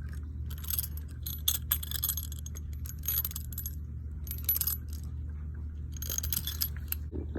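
Metal spline roller tool clicking and rattling against the screen door frame as the spline is pressed into its channel, in several short clusters over a steady low hum.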